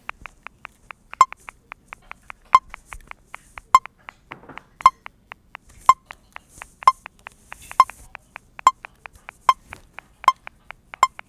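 Metronome clicking in a fast, even pulse with a louder accented beat every few clicks, the tempo speeding up steadily.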